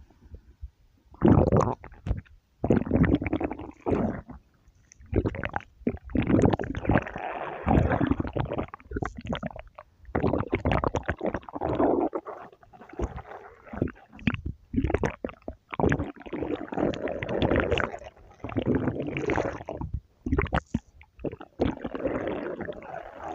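A person's stomach growling and gurgling in a long run of irregular rumbles, each lasting from under a second to a few seconds, with short pauses between them.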